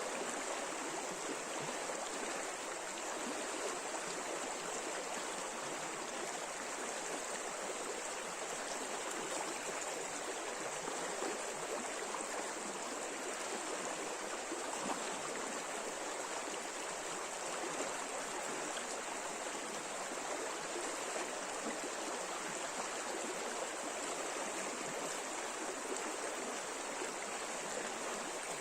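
River water rushing over shallow riffles, a steady even rush that does not let up.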